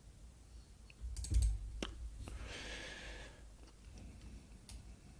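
Computer keyboard and mouse clicks: a quick cluster of sharp clicks with a low thump about a second in, then a short soft hiss a couple of seconds in, and a few more scattered clicks near the end.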